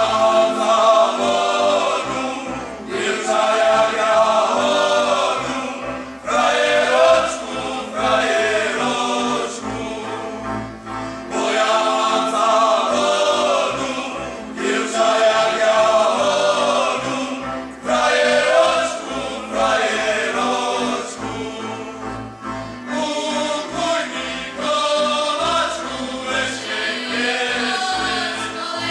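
A folk choir singing a Slovak folk song in several voices, phrase after phrase with short breaks between.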